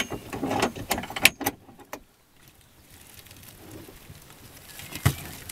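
Clatter and knocks of a monofilament fyke net being hauled and handled over the side of a small boat: a quick run of sharp knocks and rattles in the first two seconds, then quieter handling with one more sharp knock near the end.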